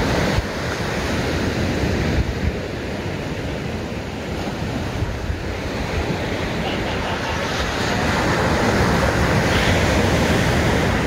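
Small ocean waves breaking and washing up a sandy beach, with wind buffeting the microphone. The surf grows louder near the end as a larger wave breaks.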